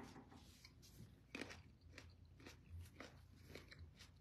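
Faint chewing: soft, moist mouth clicks and crunches of food being eaten, about twice a second.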